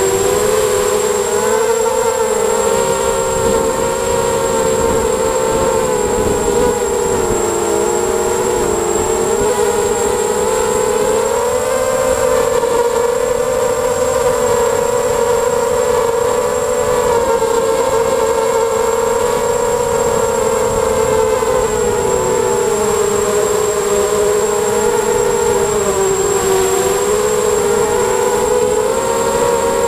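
ZMR250 mini quadcopter's brushless motors and propellers whining in flight, the pitch drifting up and down with the throttle. A thin, steady high-pitched tone sits above it.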